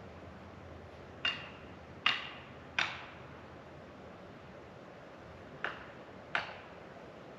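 Five sharp strikes with a brief metallic ring, three in quick succession and then two more a few seconds later.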